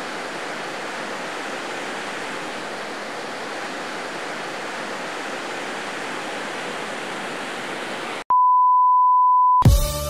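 Steady rush of breaking ocean surf for about eight seconds. It cuts off suddenly and a loud, single-pitched electronic beep is held for just over a second. Music comes in near the end.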